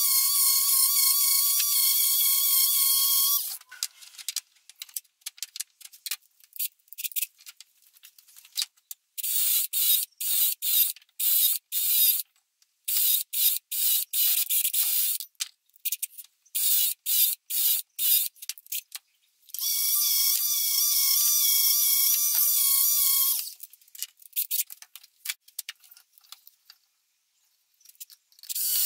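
A handheld electric sander's motor whines steadily for the first few seconds, then stops. A cordless drill follows, run in many short trigger bursts while drilling and driving screws into wood. Near the middle a tool runs steadily for about four seconds, and more short bursts come at the end.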